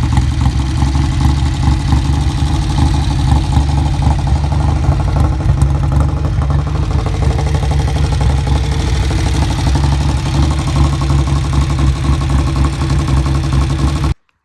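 1959 Norton Dominator's parallel-twin engine running steadily with a rapid even exhaust beat. It cuts off suddenly near the end.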